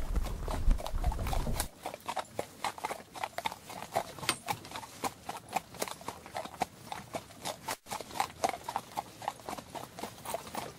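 Horses' hooves clopping at a walk, many uneven strikes a second. A low rumble under the first second and a half stops abruptly.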